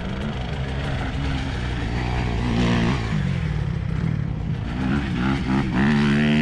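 Dirt bike engine running and revving while riding, its pitch rising and falling again and again, with a quick rise and drop near the end.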